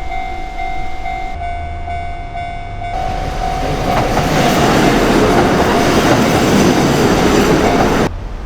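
A Japanese railway level-crossing warning bell rings with a steady, pulsing electronic clang. About three seconds in, a Taita Line diesel railcar rolls over the crossing. Its loud running and wheel noise builds and swamps the bell, then cuts off abruptly near the end.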